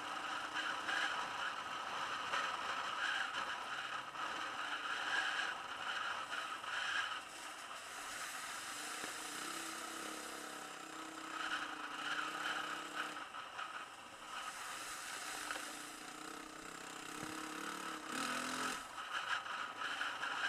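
Trail motorbike running along a rutted muddy lane, heard muffled under a steady rattle and rush of wind; the engine note shifts up and down around the middle and climbs again near the end.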